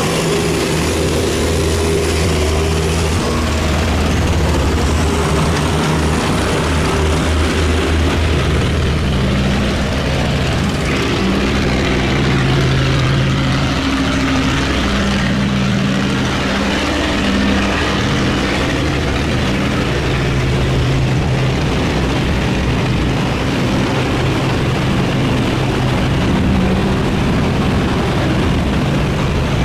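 Boat engines running, several at once, their pitch shifting every few seconds as they change speed.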